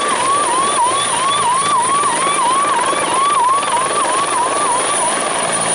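Helicopter running steadily, with a repeating rising chirp-like tone about three times a second over the engine and rotor noise.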